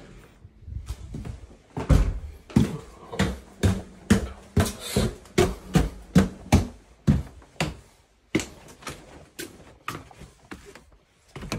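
Footsteps going down a flight of stairs, a steady run of thuds about two a second.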